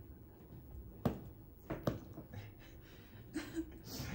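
Quiet room with a few sharp clicks or taps: one about a second in and two close together a little later, then a short pitched sound near the end.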